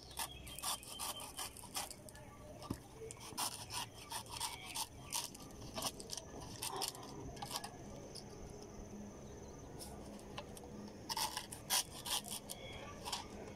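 Small kitchen knife shaving and cutting the fibrous husk of a tender green coconut: irregular short scrapes and cuts, thinning out in the middle and picking up again near the end.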